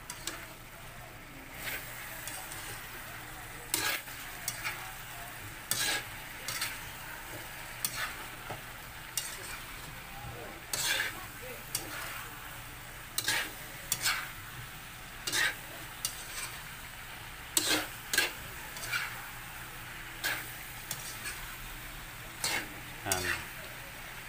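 Pork pieces in sauce sizzling in a wok over raised heat while a spatula stirs and scrapes them against the pan, with a scrape about once a second, irregularly. The sauce is being cooked down until it dries.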